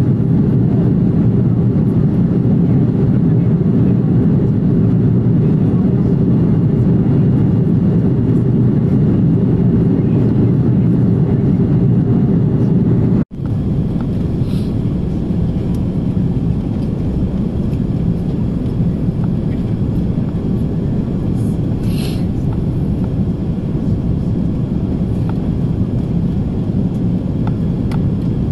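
Steady low rumble of engine and airflow noise in the cabin of an Airbus A330-343E with Rolls-Royce Trent 700 engines. It breaks off sharply for an instant about 13 seconds in, then carries on slightly quieter with the aircraft on approach, flaps extended.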